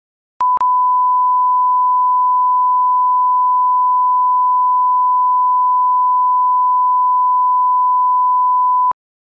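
Loud, steady 1 kHz line-up tone, the audio reference that accompanies colour bars for setting levels. It starts with a click and a momentary break, holds one unchanging pitch, and cuts off abruptly near the end.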